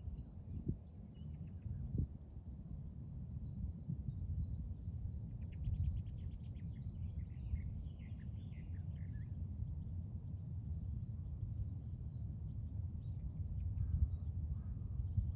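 Wild birds chirping over a steady low rumble of wind on the microphone, with one bird giving a rapid trill and warble about a third of the way in.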